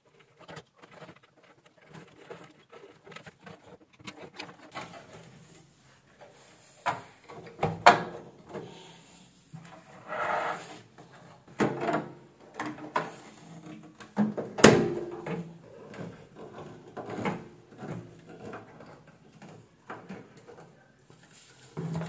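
Handling noise from an opened microwave oven: scattered knocks, clicks and rubbing from its sheet-metal cabinet as it is turned and shifted by hand, with loud clunks about 8 and 15 seconds in.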